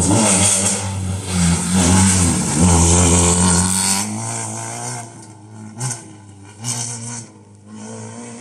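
Rally car passing close by at speed, its engine revving hard with the note dipping and rising. After about four seconds it fades as the car drives away, with two short louder bursts near the end.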